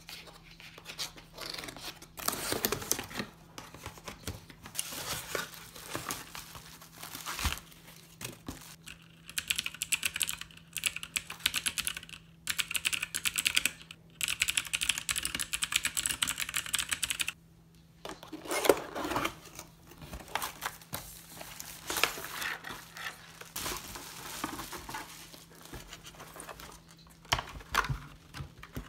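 Cardboard box and plastic packaging handled, rustling and crinkling, as keyboards are unboxed. In the middle come several seconds of rapid typing on a keyboard's keys, then more packaging rustle.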